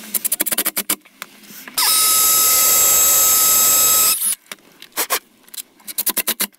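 Cordless driver setting Tapcon concrete screws through a steel mounting bracket into a block wall. It gives bursts of rapid clicking, then about two seconds of loud steady whine that stops suddenly, then more rapid clicking near the end.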